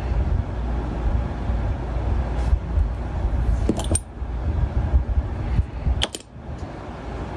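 A small cap clinks against the rim of a glass bottle twice, about two seconds apart, as the bottle is opened and then closed again. A steady low rumble runs underneath.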